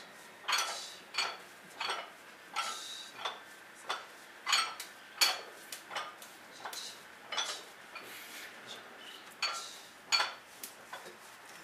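Barbell and its iron plates clinking with each rep of a prone bench row, a sharp metallic clink with a short ring about one and a half times a second.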